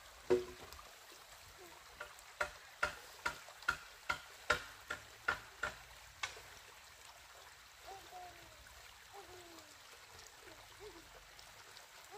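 A run of about a dozen sharp knocks, two or three a second, from a hand tool striking bamboo; they stop about six seconds in, and faint short chirps follow.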